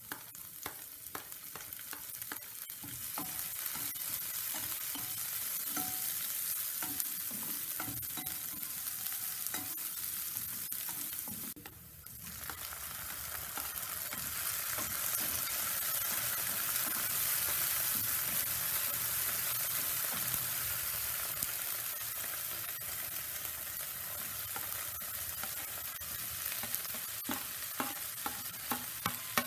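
Garlic, onion and tomato sizzling in hot oil in a non-stick frying pan, stirred with a slotted spoon that clicks and scrapes against the pan. The sizzle drops out briefly about twelve seconds in and comes back, and near the end sliced bitter gourd is tipped into the pan.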